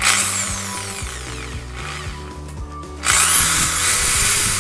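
Bosch GSB 13 RE 650 W corded impact drill running free with no bit. A short burst on the trigger at the start is followed by the motor's whine falling as it slows. About three seconds in, it runs up to full speed again and is held there.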